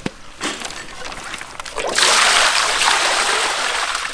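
Water poured into a large aluminium basin over a slab of raw pork, a loud, steady splashing pour that starts suddenly about two seconds in, after a few light handling clicks.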